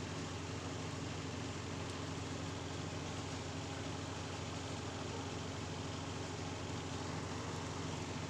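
A steady, unchanging mechanical hum with an even hiss over it, engine-like.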